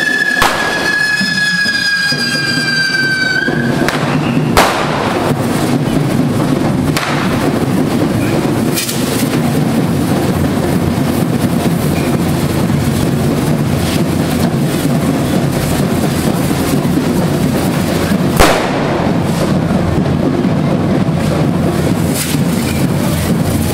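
Devils' handheld spark-spraying fireworks hissing and crackling steadily, with a few sharp bangs: one just after the start, one about four and a half seconds in, and the loudest about eighteen seconds in. A high whistle, falling slightly in pitch, fades out in the first three seconds or so.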